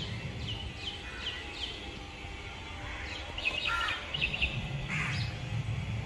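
House sparrows chirping: a run of four short, falling chirps in the first two seconds, then a busier cluster of chirps around the middle.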